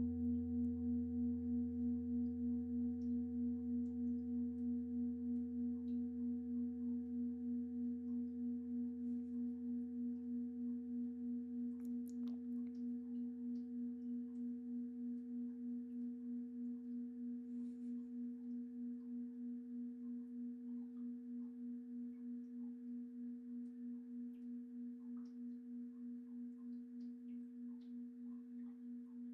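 A deep pelvic singing bowl rings out after a strike: a low, steady hum that pulses evenly as it slowly fades away.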